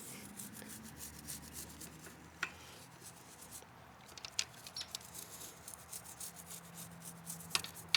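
Toothbrush scrubbing the inside of a motorcycle chain wet with chain cleaner: quiet, uneven bristle strokes with a few sharper ticks.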